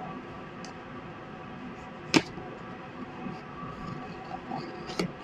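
Two sharp clicks about three seconds apart, over faint handling and rustling noise.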